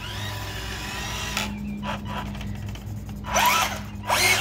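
Electric drive motor and gearbox of a BWINE Q111 1:12-scale RC tank whining as it drives on its rubber tracks over asphalt. The whine rises in pitch at the start and wavers near the end.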